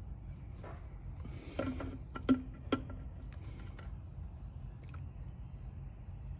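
Hand work on a string trimmer's fuel line and filter: light scraping and handling noises, with a few sharp clicks and knocks of small parts about one and a half to three seconds in, over a steady low hum.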